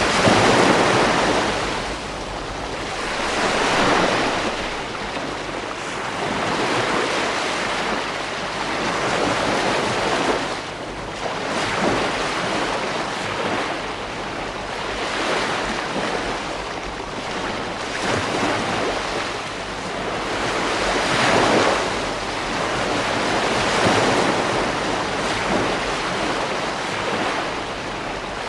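Ocean waves breaking and washing up a beach, the surf swelling and falling back every few seconds, with a low rumble of wind on the microphone underneath.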